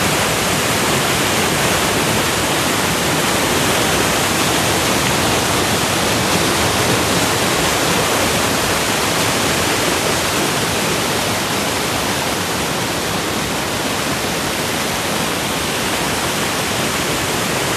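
Whitewater rapids pouring over rock boulders: a loud, steady rush of water.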